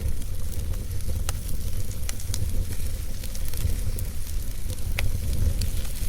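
Wood fire burning in a fireplace: a low steady rumble of flame with sharp crackles and pops from the burning wood at irregular intervals.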